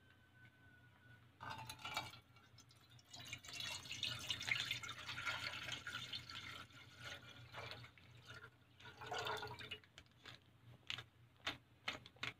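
Milk being poured into a metal cooking pot: a steady splashing pour that starts about a second and a half in and stops about ten seconds in, followed by a few short sharp ticks near the end.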